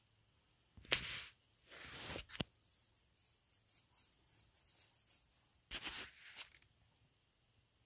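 A pool shot on a billiard table: a sharp click of the cue tip striking the cue ball about a second in, then a few seconds of faint scattered clicks as the balls roll and knock against the cushions. Two short rushing swishes sound around two and six seconds in.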